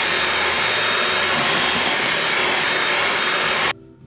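Electric hand mixer running steadily with a faint high whine as it beats creamed cake batter. The sound cuts off suddenly near the end.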